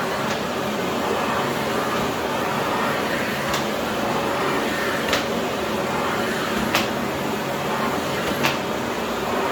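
Philips PowerPro FC9331/09 900 W bagless vacuum cleaner running steadily, with a sharp click every second or two.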